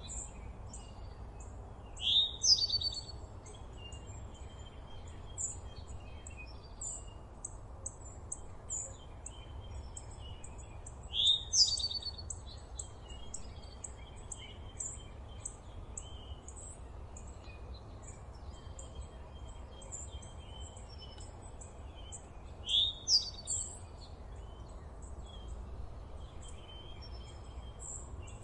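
Wild birds singing. One bird gives a loud, short rising song phrase three times, roughly every ten seconds, over many quick high chirps from other birds and a steady low background noise.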